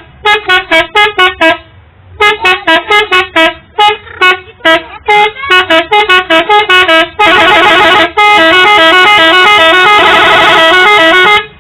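A bus's 'telolet' multi-tone musical horn playing loud: a quick tune of short toots at changing pitches, then two long blasts with shifting notes over the last four seconds, cutting off sharply near the end.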